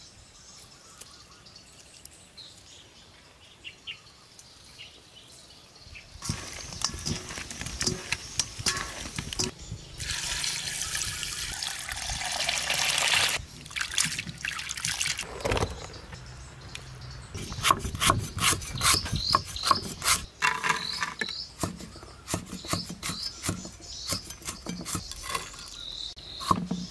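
Hands swishing and splashing chunks of eel in a metal bowl of water, with a loud stretch of pouring water about halfway through. In the last third, quick, uneven knife strokes chop on a board while birds chirp.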